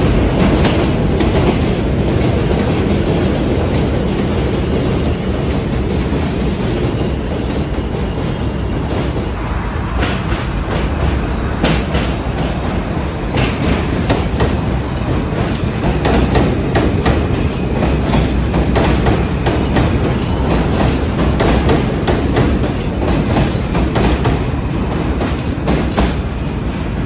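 New York City subway train running past on bridge tracks: a steady rumble, with a rapid run of clicks from the wheels clacking over rail joints starting about ten seconds in.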